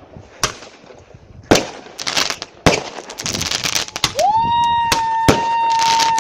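Consumer fireworks going off: about five sharp bangs with crackling between them. From about four seconds in, a high whistle rises in and holds steady for about two seconds.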